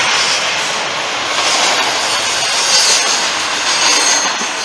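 CSX freight train of covered hopper cars rolling past close by: a loud, steady rush of steel wheels on the rails.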